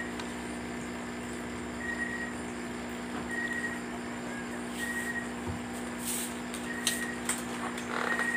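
A steady electrical hum with a short high beep repeating about every one and a half to two seconds; a few sharp clicks and a rustle near the end.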